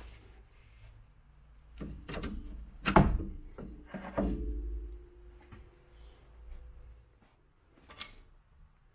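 Metal tools and parts being handled: a few knocks, a loud clank about three seconds in, and a second clank a second later that leaves a metallic ringing note for a couple of seconds.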